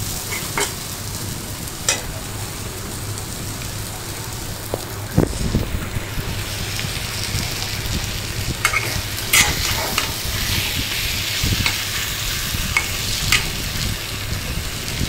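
Green mango pieces in spice paste sizzling in a metal karahi while a steel spatula stirs them, clicking and scraping against the pan now and then. A dull bump comes about five seconds in.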